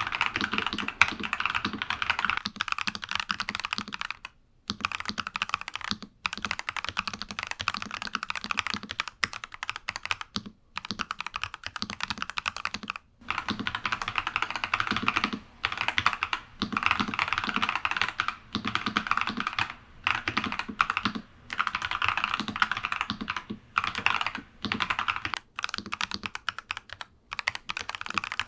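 Typing on a NuPhy Halo 96 mechanical keyboard fitted with Akko Crystal Silver switches: a fast, continuous run of keystroke clacks with brief pauses every few seconds.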